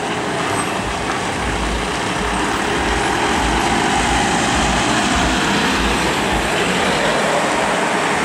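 A heavily loaded goods lorry's diesel engine runs at low speed as the truck pulls slowly around a tight hairpin bend. It is a steady low rumble that grows a little louder from about two seconds in.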